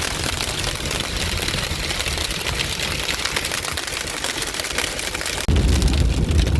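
Rain pattering in a dense, fast stream of drops. About five and a half seconds in it cuts to a louder, deeper rushing sound.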